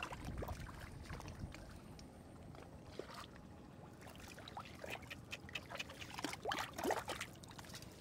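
Hands squelching and sloshing through wet mud and shallow water, with irregular wet slaps and splashes that come thickest near the end.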